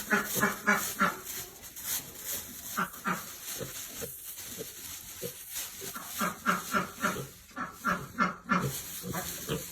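Miniature Juliana pig grunting, a run of short grunts a few a second.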